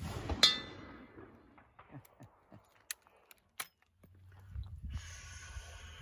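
A red steel gong target rings with a bright, fading tone as a bullet from a black-powder Peabody rifle strikes it about half a second in, just after the shot. A few sharp metallic clicks follow as the rifle's falling-block breech is worked.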